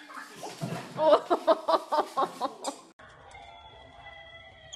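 A young girl laughing in a quick run of pulses, about five a second, while she tugs a toy against a dog. The laughter cuts off sharply and gives way to a faint, steady high whine.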